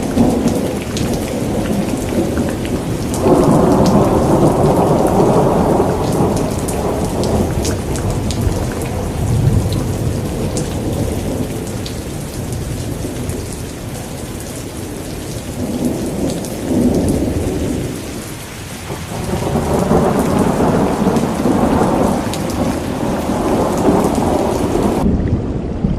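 Steady heavy rain with scattered drop ticks, and rolling thunder that swells and fades several times, most strongly a few seconds in and again near the end.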